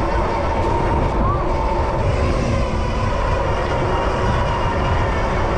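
Super73 ZX electric bike riding through city traffic: a dense low rumble of wind on the microphone, tyre and traffic noise, with a thin steady whine above it.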